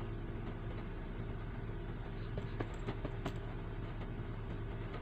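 A steady low mechanical hum with a faint hiss, like a small motor running, with a few light clicks a little past halfway.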